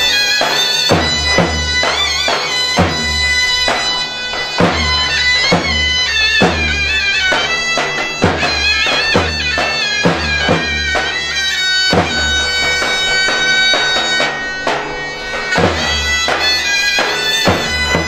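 Zeybek folk music: a shrill reed wind instrument plays an ornamented melody over a deep drum that strikes heavily about once a second in a slow beat.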